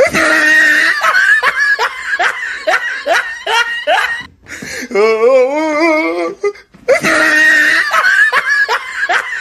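Loud human laughter, a laughter sound effect: a wavering, rising cackle followed by a run of short, falling 'ha's, with the same laugh repeating partway through.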